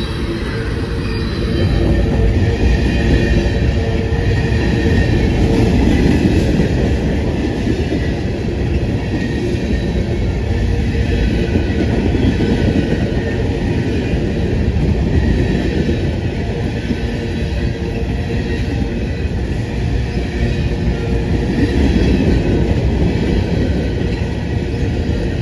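Freight cars of a passing freight train rolling by, a steady rumble and clatter of steel wheels on the rails.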